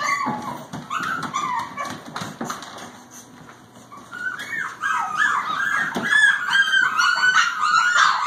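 Eight-week-old Shichon (Shih Tzu–Bichon) puppies whining and yipping in high, wavering cries. The cries are broken at first, ease off around the middle, then become loud and nearly continuous from about halfway through.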